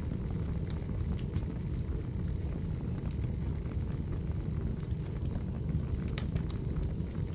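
Crackling wood fire: a steady low rumble of burning logs with scattered sharp pops and crackles, a quick cluster of pops about six seconds in.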